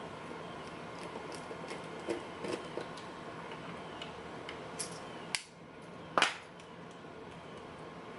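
Light metallic clicks and taps from an American Lock 5200 padlock being handled and taken apart, with a sharp click a little after five seconds in and a louder one about six seconds in.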